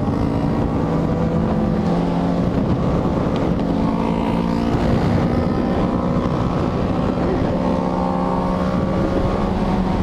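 Motorcycle engines running steadily at highway cruising speed, with wind rushing over the microphone.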